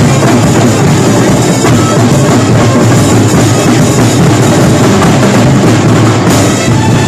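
Loud music driven by a drum kit with a heavy bass drum, in a rock style.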